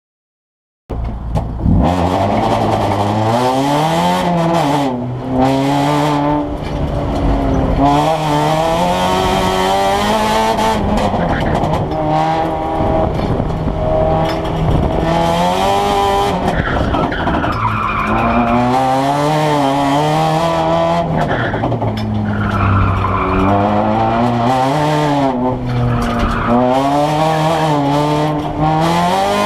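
Race car engine heard from inside the cabin, revving up and dropping again and again as it is driven hard through a course, with tyres squealing in several corners. It starts about a second in.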